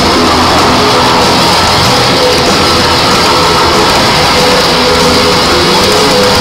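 Loud rock-style music accompanying a fireworks display, mixed with the dense crackle and bangs of the fireworks. The sound stays steadily loud throughout.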